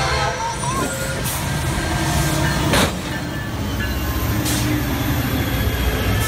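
Norfolk Southern diesel freight locomotive passing close by at a road crossing: a steady engine and wheel rumble, with three sharp knocks from the wheels spaced about a second and a half apart.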